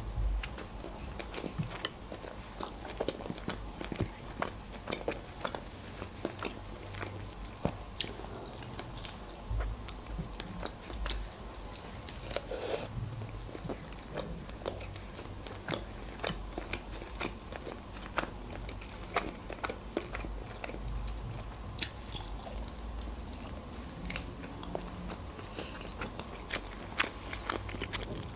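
Close-miked chewing and biting of pan-fried chicken wings, with many short wet mouth clicks and smacks scattered throughout.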